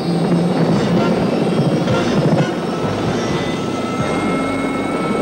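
Helicopter rotor and engine running loud and steady, a dense chopping rumble with a few steady tones held over it.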